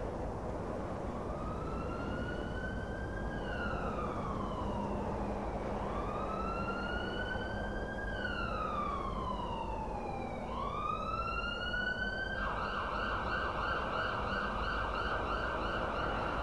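An emergency vehicle siren wailing in slow rising and falling sweeps, then switching about twelve seconds in to a rapid yelp. There is steady background noise underneath.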